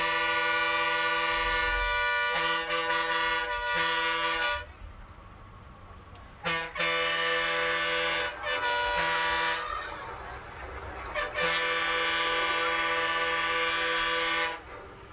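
Bus air horn sounding in about six blasts, each one steady chord of several tones. The three long blasts, near the start, about seven seconds in and near the end, each last two to three seconds; the shorter blasts fall between them.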